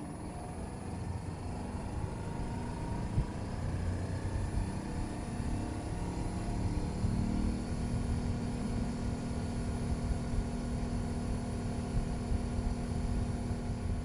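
Trane XV20i variable-speed air conditioner's outdoor unit ramping up after start-up: a low mechanical hum that grows louder, with a pitch that climbs over a couple of seconds before settling into a steady running hum.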